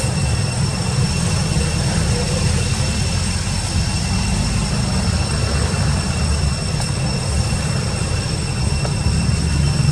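A steady low rumble, with faint high-pitched whining tones held over it.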